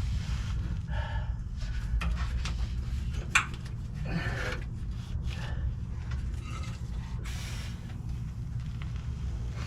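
A steady low mechanical hum, with scattered rubbing and handling noises over it and one sharp click about three and a half seconds in.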